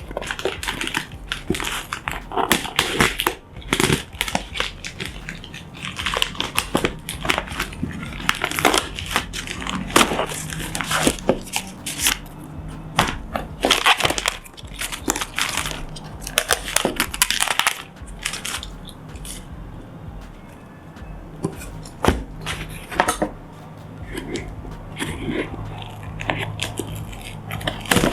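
A flashlight's cardboard retail box being opened by hand: irregular rustling, crinkling and tearing of packaging, with scattered knocks and clicks as parts are handled.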